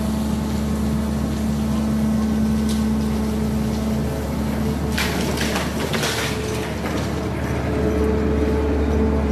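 Excavator's diesel engine running steadily with a constant low drone. About five seconds in comes a hissing burst lasting a second or so.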